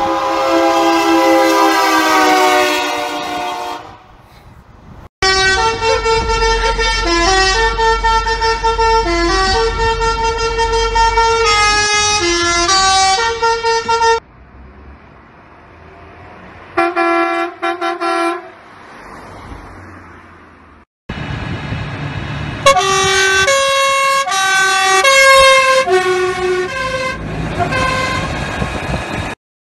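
Train horns fitted to trucks: a multi-note horn chord held for about three and a half seconds, then a musical air horn playing a tune for about nine seconds over a low rumble, a few short horn blasts, and another horn melody over the last eight seconds.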